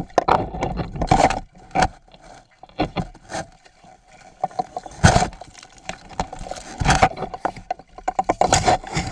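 Water splashing and sloshing against a camera's housing at the waterline of an ice hole, with irregular knocks and scrapes of the housing against ice and gear. The loudest knocks come about five and seven seconds in, with a quick run of them near the end.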